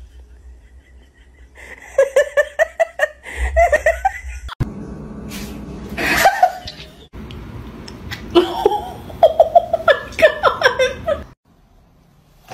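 A person laughing in runs of quick 'ha-ha' bursts, once about two seconds in and again from about eight to eleven seconds.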